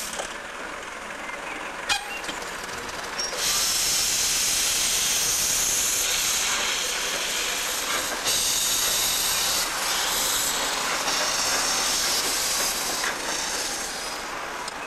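Isle of Man Railway No. 4 Loch, a Beyer Peacock 2-4-0 tank locomotive, moving off slowly with steam blowing from around its cylinders, a loud steady hiss. The hiss comes up sharply about three and a half seconds in and eases near the end, with a single sharp click a little before it starts.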